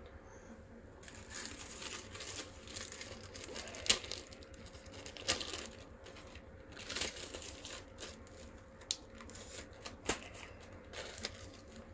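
Crinkling and rustling of something being handled by hand, starting about a second in, with several sharp clicks or taps scattered through it, the loudest about four seconds in.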